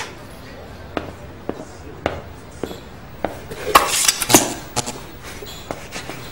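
Hard-soled footsteps at a steady walking pace on a café floor, with a short clatter of crockery and cutlery about halfway through.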